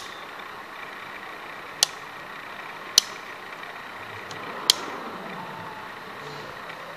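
Four sharp clicks from bench test equipment being handled while the input voltage is set, over a steady low hiss.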